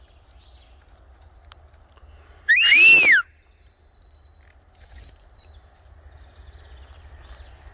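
Blue-and-gold macaw giving one loud call that rises and then falls in pitch, lasting under a second, about two and a half seconds in.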